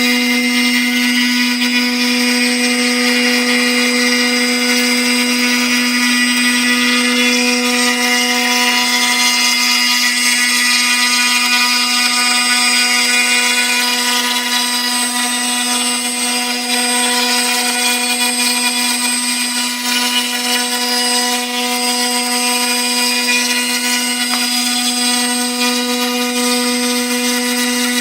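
High-speed spindle of a 4-axis CNC router running steadily while cutting foam: a constant whine with a hiss of the bit working the foam.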